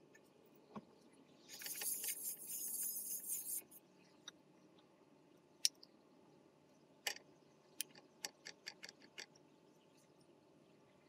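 Cooking oil hitting a hot nonstick frying pan: a burst of sizzling hiss with crackle lasting about two seconds, then a scatter of sharp ticks and pops from the pan.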